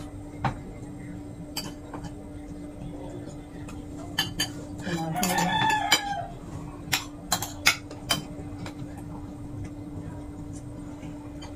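A rooster crows once, about five seconds in. Spoons and forks clink on plates around it over a steady low hum.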